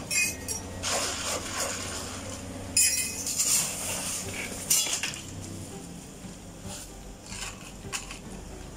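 Clinking and knocking of utensils, cups and containers as iced drinks are made, with sharper clatters near the start, about three seconds in and about five seconds in.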